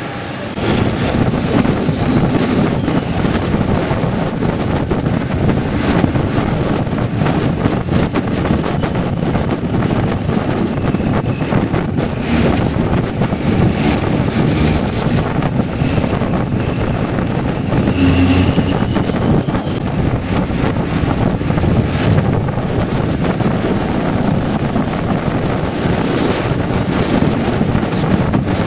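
Wind buffeting the microphone on the open top deck of a moving bus, a loud steady rumble with the bus's running noise beneath it.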